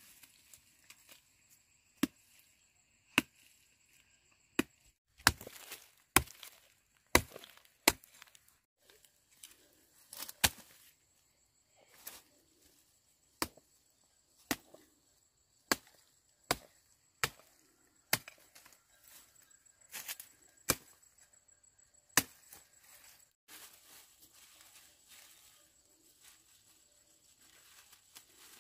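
A machete chopping cassava roots and woody stems, sharp strikes about once a second, stopping a few seconds before the end.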